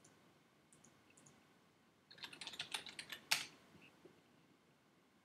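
Typing on a computer keyboard, faint: a few scattered clicks about a second in, then a quick run of about a dozen keystrokes a little after two seconds in, ending in one louder key press.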